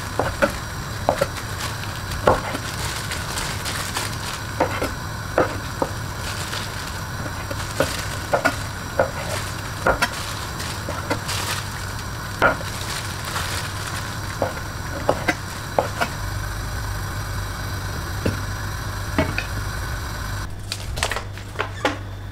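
Chef's knife chopping through cooked meat onto a wooden cutting board: irregular sharp knocks, roughly one or two a second, over a steady background hum.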